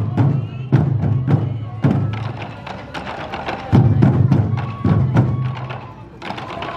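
Sansa odori festival drumming: a group of taiko drums beaten together in a steady beat about every half second, with brief lulls between phrases and a faint melody line above.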